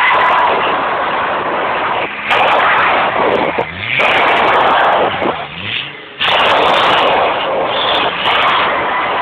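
Nissan Patrol 3.3-litre turbo's tyres spinning in a burnout, loud and continuous, with the engine revving. The noise dips briefly a few times, most deeply just before the middle, as the revs drop and climb again, then carries on.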